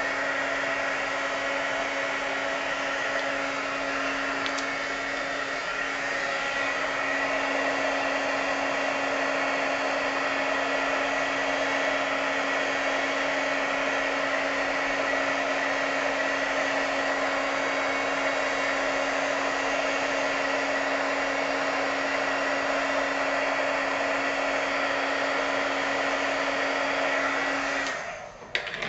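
Handheld heat gun running steadily: a rush of blown air over a steady low hum. It switches off about a second before the end.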